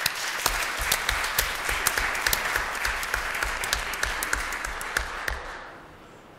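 Audience applauding: dense clapping that fades away about five and a half seconds in.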